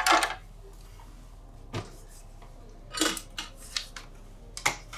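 Sheet-metal housing of an Xbox One X being lifted, turned over and set down: a scatter of short metallic clanks and knocks. The loudest comes right at the start, a cluster about three seconds in, and one more near the end.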